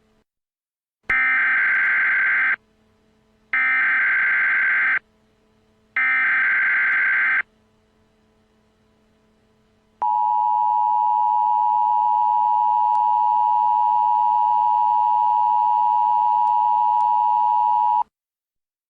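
Emergency Alert System tones: three short screeching bursts of SAME header data, each about a second and a half with a short gap between, then the EAS two-tone attention signal, a steady beep held for about eight seconds that stops abruptly.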